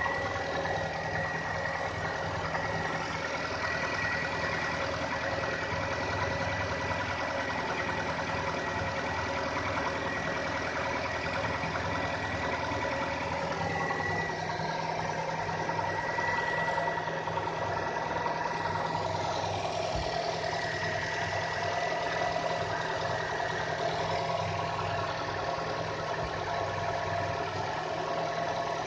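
Renault Koleos 2.5-litre four-cylinder petrol engine idling steadily, with a thin high whine over it, while the owner listens for a knock that shows on cold start.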